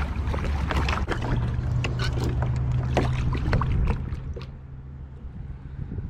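Knocks, clicks and water noise around a kayak, over a low steady hum, growing quieter about four seconds in.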